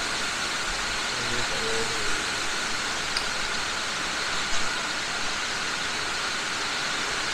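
Steady forest ambience at dusk: an even hiss with a constant high-pitched drone, typical of a tropical insect chorus. A short murmur of a voice comes about a second and a half in.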